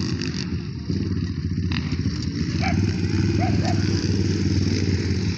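Racal 150 Chinese dirt bike's engine running steadily. Its low note becomes stronger and steadier about a second in.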